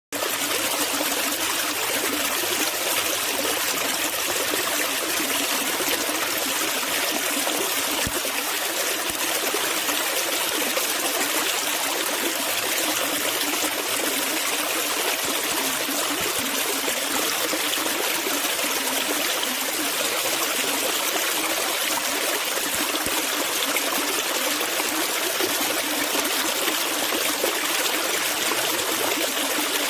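Water in a stream running steadily, a continuous even rush.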